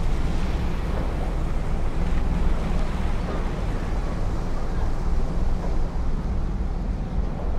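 Steady rushing noise of wind and water, deep and even throughout.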